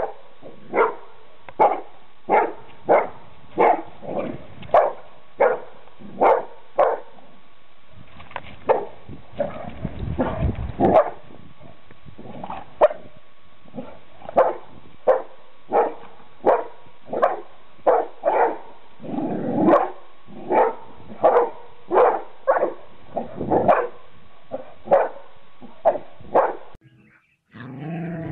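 A dog barking steadily at a snake, one short sharp bark about every three-quarters of a second. The barking stops shortly before the end.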